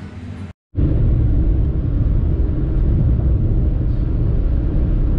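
Steady low rumble of a car being driven, engine and road noise heard from inside the cabin, cutting in after a brief moment of silence about half a second in.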